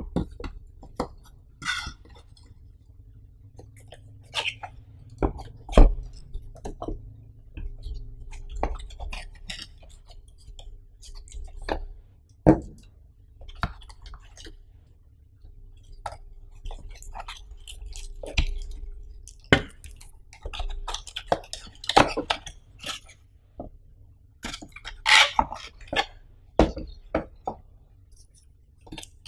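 Close-miked handling of a cardboard box and its packing: the box set down and tapped on the table, cardboard flaps opening, and tissue paper and paper cards crinkling, in scattered short bursts of clicks and rustles.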